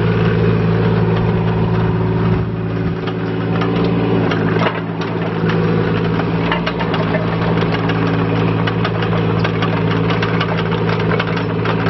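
Yanmar B12 mini excavator's small diesel engine running steadily, with a rapid clatter over it as the machine travels and turns on its tracks. The engine note dips briefly twice, about two and a half and five seconds in.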